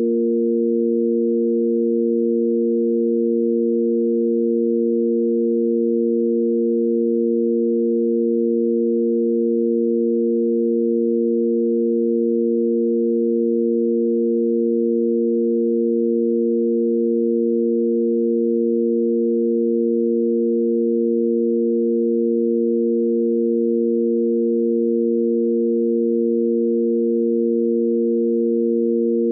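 Sine-wave tanpura drone in A#: three pure sine tones held steady together, the root A#, its fifth and the A# octave above, with no variation in pitch or loudness.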